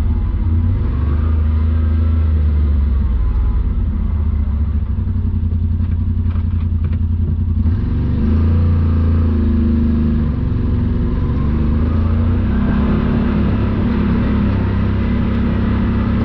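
Side-by-side UTV engine running as the machine drives on a trail, its note shifting about halfway through.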